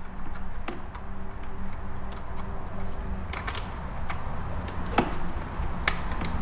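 Small plastic clicks and taps as a ribbon cable connector is handled and fitted into the back of a car stereo's display mount, with a sharper click about five seconds in.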